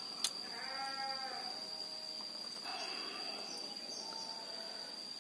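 Insects drone at one steady high pitch throughout. Over it come a single sharp click just after the start and a short bleat about a second in.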